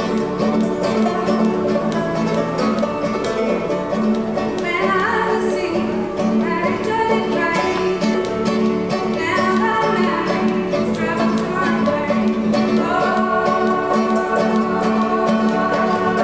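Clawhammer banjo and acoustic guitar playing an old-time tune, with a woman and a man singing over them from about five seconds in.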